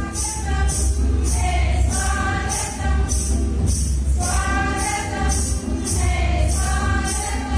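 A group of voices singing a hymn together, with a jingling beat, like a tambourine, about twice a second and a deep bass underneath.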